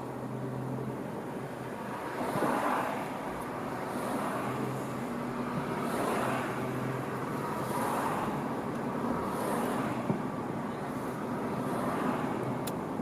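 Car driving: steady road and engine noise with a low hum, and a soft swish that recurs every second or two.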